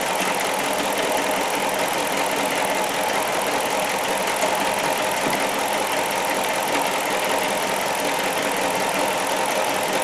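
Jeep Commander's 5.7 Hemi V8 idling steadily with a dead misfire on cylinder 7: that cylinder's injector is getting no firing pulse.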